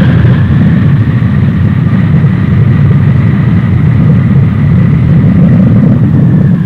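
Jet engines of a C-5 Galaxy in flight: a loud, dense rumble with a high whine that holds steady and drops slightly near the end.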